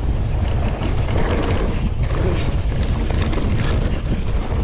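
Wind buffeting a GoPro Hero 9 action camera's microphone as a mountain bike rides down a dirt trail. The bike rattles and clatters over rough ground throughout.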